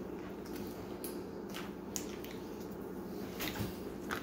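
Foil-laminate ration pouch of strawberry jam being handled and torn open by hand: scattered short, faint crinkles and crackles of the foil over a steady low hum.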